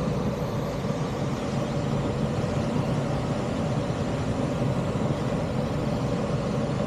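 Steady in-flight cockpit noise of a Stemme S10 motor glider: an even rush of airflow with a faint steady hum underneath.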